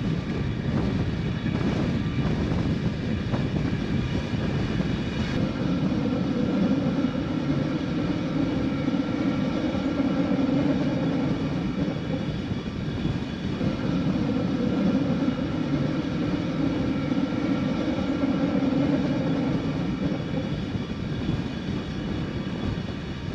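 Camera drone's propellers humming steadily, a whine of several steady tones that grows stronger twice, over a rush of air.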